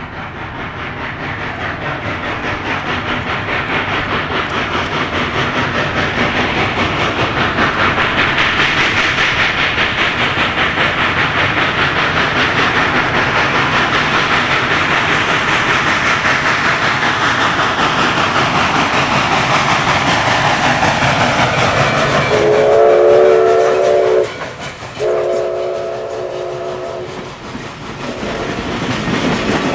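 Canadian National #3254, a 2-8-2 Mikado steam locomotive, working hard as it approaches, its exhaust chuffing and growing steadily louder. About three-quarters of the way through, its steam whistle sounds two long blasts, and then the passenger cars' wheels click over the rail joints as the train passes.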